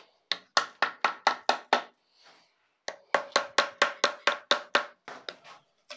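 Copper-and-rubber faced mallet knocking the base plate of a Vauxhall F17 gearbox to free it from the case: two runs of quick knocks, about four a second, with a short pause between them. The second run rings with a steady metallic note and trails off in a few lighter taps near the end.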